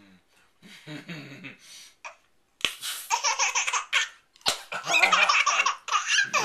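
Baby laughing in repeated hearty fits, quiet at first and breaking into loud laughter about two and a half seconds in.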